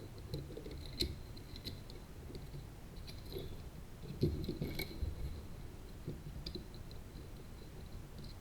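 Light clicks and taps of CubeSat circuit boards and standoffs being handled and fitted together, scattered and quiet, the sharpest about a second in and around four to five seconds in.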